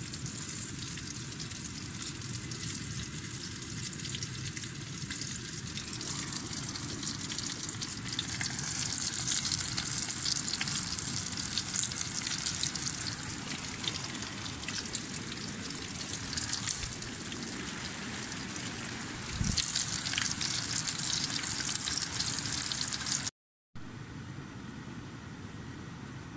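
Rain pattering on a tent's flysheet: a dense hiss of fine ticks that swells in heavier spells, with one dull thump about three-quarters of the way through. Near the end it drops to a quieter steady hiss.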